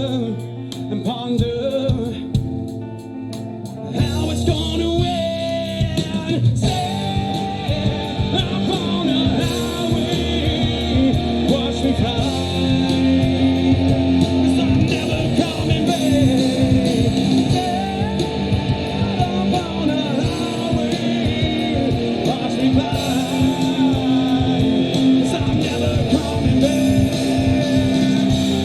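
Live rock band playing, with guitars, bass and drums under a singer's voice. For about four seconds the sound is sparser and quieter, then the full band comes in louder.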